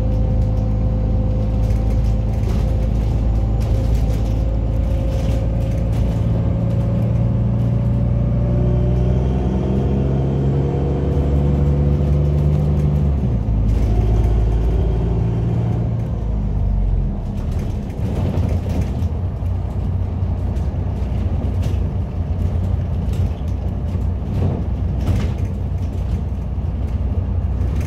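Cabin sound of a MAZ-203 city bus under way: the engine's drone shifts in pitch as it pulls, then fades away about two-thirds of the way through, leaving road rumble and scattered cabin rattles.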